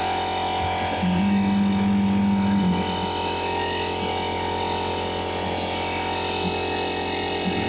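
Schaublin 110 CNC lathe running under test: a steady machine hum of motors and drives. A louder low hum comes in about a second in and stops again just before three seconds.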